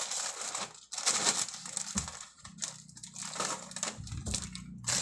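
Plastic snack-chip bags crinkling as they are grabbed and moved aside, in uneven spurts with short pauses.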